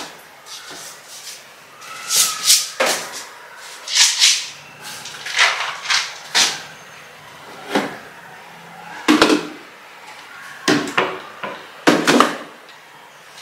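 Jars and containers being lifted off a kitchen cabinet shelf and set down, with paper rustling: a string of knocks, clatters and rustles every second or two. The sharpest knocks come about nine seconds in and again near twelve seconds.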